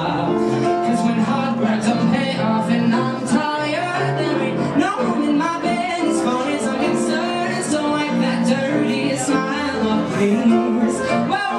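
A man singing a pop-soul song into a handheld microphone over live instrumental accompaniment.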